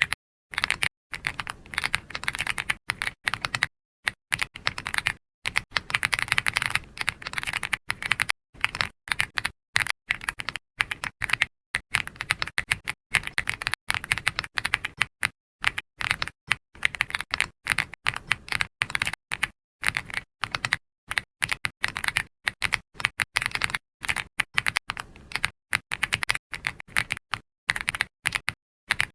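Computer keyboard being typed on: a quick, irregular run of key clicks with brief pauses between bursts.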